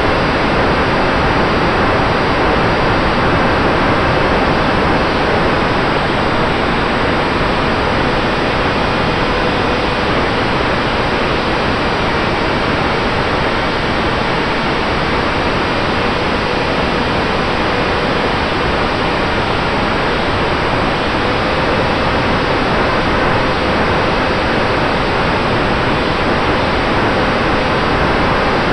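Steady rushing wind noise on the onboard camera of an Eachine Micro Skysurfer foam RC plane in flight, with a faint, slightly wavering whine from its electric motor and propeller.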